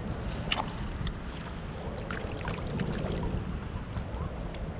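Wind rumbling on the microphone and water lapping against a kayak's hull, with a few light ticks scattered through.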